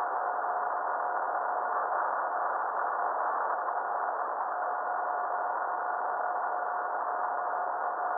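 A steady electronic tone with a fainter higher tone above it, over an even band of hiss.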